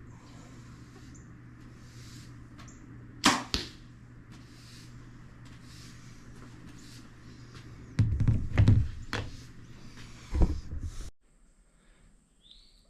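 A bow being shot at a practice target: a sharp snap of the string's release followed a split second later by the arrow striking the target. Several heavier knocks and thumps follow later on.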